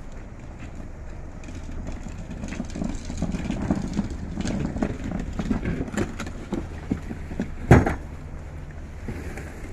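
Outdoor street sound: a low steady rumble with a run of short knocks about two a second in the middle, and one loud knock near the end.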